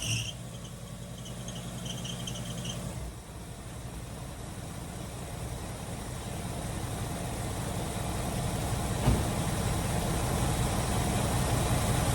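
Car engine with a freshly rebuilt Edelbrock carburettor starting up after a flooding: a high whine for the first three seconds, then the engine runs steadily at idle, slowly getting louder, with one short knock about nine seconds in. The idle is not yet adjusted.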